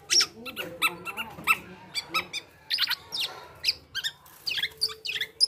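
Black-naped oriole singing a rapid string of short whistled and chattering notes that sweep up and down in pitch, several a second with brief gaps.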